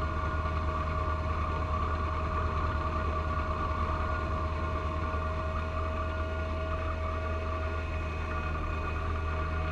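John Deere 1025R compact tractor's three-cylinder diesel running steadily at working speed, driving its front-mounted 54-inch snow blower through heavy wet snow, with a steady whine over the engine note.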